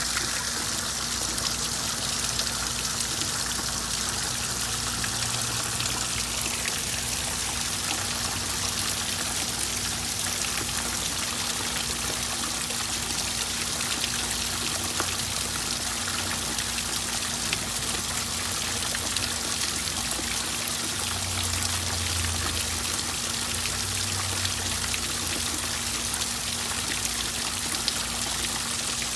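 Rain falling steadily on a garden pond, pattering on the water surface, mixed with water trickling from a terracotta urn's spout into the pond. A faint steady low hum runs underneath.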